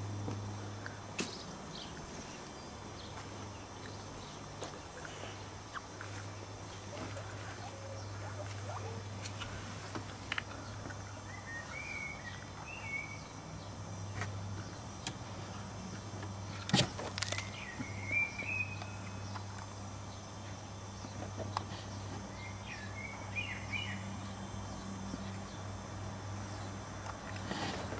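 Quiet outdoor ambience: a steady low hum, a few clusters of short faint chirps in the second half, and a few sharp clicks, the loudest a little past halfway.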